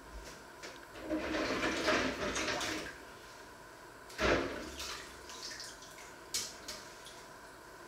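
Water running from a kitchen tap for about two seconds, then one sharp knock, the loudest sound, as of a metal pot or utensil set down, followed by a few small clicks.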